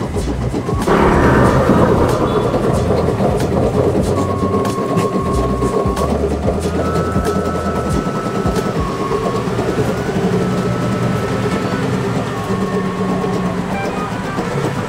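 Brother Innov-is NV800E computerised embroidery machine stitching at speed: a fast, even needle clatter with a thin whine that steps up and down in pitch as the hoop moves.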